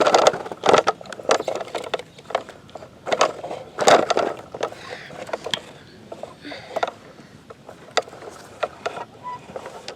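A toy front loader scraping and scooping through sand and dirt: a rapid, irregular run of gritty scrapes and knocks, busiest in the first half and thinning out towards the end.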